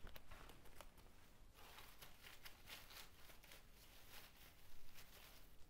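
Faint rustling of leaves as leafy foliage stems are tucked into a hanging garland of fresh hops bines. Soft crinkly brushes come in the middle and once more near the end.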